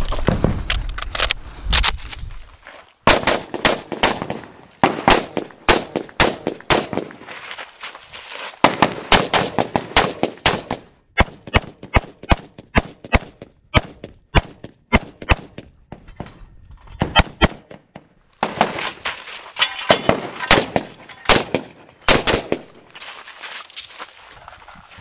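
Strings of rapid semi-automatic rifle fire from a Galil ACE in 7.62x39: dozens of sharp, loud shots in quick runs, separated by short pauses. A loud low rumble comes before the first shots.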